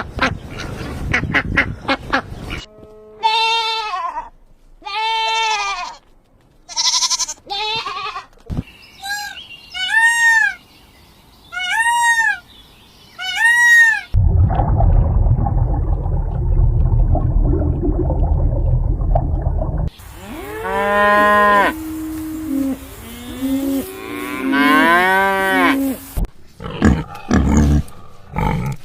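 Farm animals calling in a run of separate clips cut one after another, cattle mooing among them. One stretch is a string of rising-and-falling calls at about one a second.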